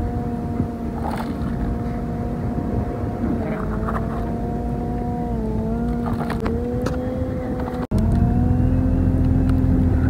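A steady motor drone with a low rumble and a humming tone that dips and rises slightly in pitch. It breaks off for an instant about eight seconds in and resumes a little louder.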